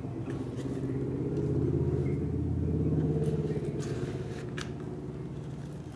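A low motor rumble that swells and fades over a few seconds, with a couple of faint clicks near the end as a knife is handled in its leather sheath.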